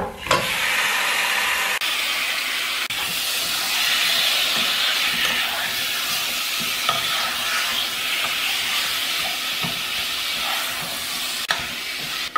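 Marinated chicken pieces sizzling as they go into hot fried masala in a nonstick pot and are stirred with a wooden spatula, with a few knocks of the spatula against the pot. The sizzling sets in all at once as the chicken goes in.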